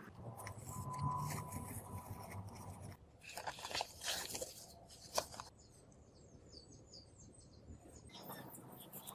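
Hands handling a plastic car-stereo mounting frame with an aluminium trim strip: light clicks and rustles, the sharpest a little after five seconds in.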